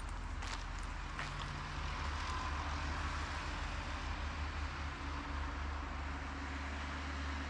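Steady drone of a distant engine, with a few footsteps.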